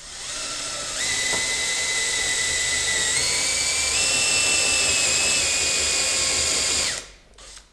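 Power drill boring a hole through a small plywood box, its motor running with a steady whine. The whine builds over the first second, steps up in pitch twice, about three and four seconds in, and stops about seven seconds in.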